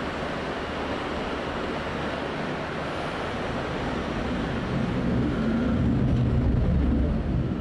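Handheld gas torch burning, a steady rushing noise that grows deeper and a little louder about five seconds in, as the flame is worked over the sign's edges to scorch the wood.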